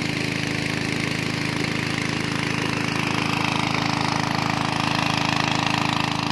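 Portable engine-driven water pump running steadily, draining a pond, with water rushing out of its discharge pipe.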